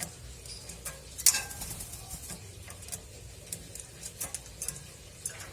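Irregular sharp clicks and taps, a dozen or so, with one much louder click about a second in.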